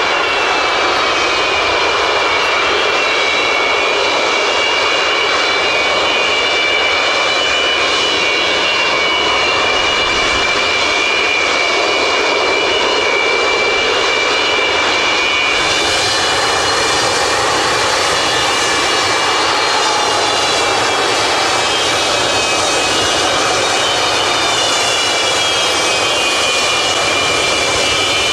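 Antonov An-225 Mriya's six Progress D-18T turbofan engines running at low power as the aircraft taxis. A loud, steady jet whine of several high tones over a rushing roar, the tones drifting slightly in pitch.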